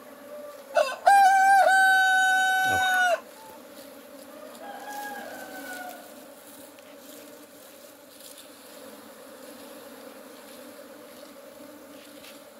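A rooster crows once, about a second in: a loud, long, even call held for about two seconds that drops off at the end. A fainter call follows a few seconds later, over the steady hum of honeybees swarming around an opened hive.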